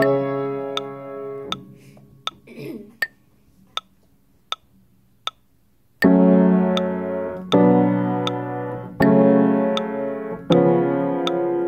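Upright piano playing minor block chords. The opening chord dies away, there is a pause of about four seconds, and then chords are struck steadily about every second and a half. A faint, steady click about every three-quarters of a second runs underneath.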